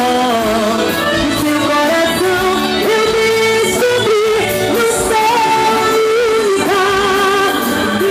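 Live band music: a sustained melodic lead line moving from note to note over a steady drum beat, with singing.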